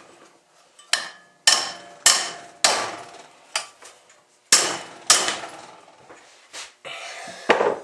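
Hammer tapping on a metal part of a small engine, about nine separate blows at uneven spacing, each ringing briefly; the part is being knocked into place so it no longer rubs against a moving part.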